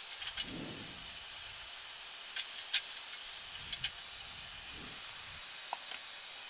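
Steady hiss of airflow and air conditioning on a Boeing 737 MAX flight deck in descent, with several sharp clicks scattered through it, the loudest about three seconds in.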